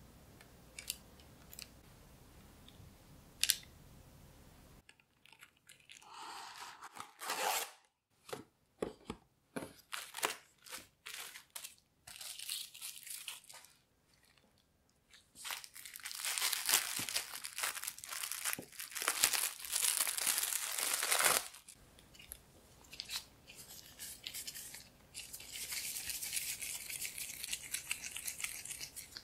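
Close-up food-preparation handling sounds: a few light clicks of a spatula against a tray, then a run of separate taps and rustles. A long stretch of rustling or tearing in the middle is the loudest part. Near the end comes softer crinkling as plastic-gloved hands press a crumbly cream cheese and white chocolate mixture into a tray.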